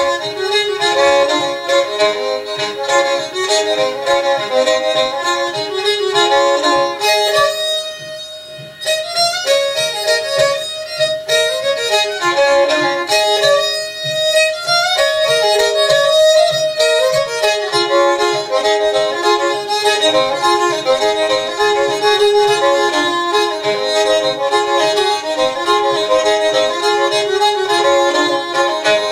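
Fiddle playing a quick tune in many short bowed notes. For a stretch near the middle one note is held steadily beneath the moving melody, before the full playing picks up again.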